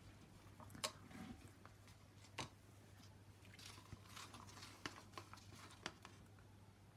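Faint clicks and light scrapes of a stick against plastic cups as acrylic paint is scraped out of one cup into another, a few scattered knocks over a low steady hum.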